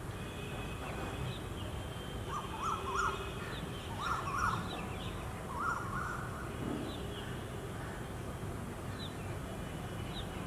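Birds calling: three bursts of short, rough calls about two and a half, four and six seconds in, with thin higher notes scattered through, over a steady low rumble.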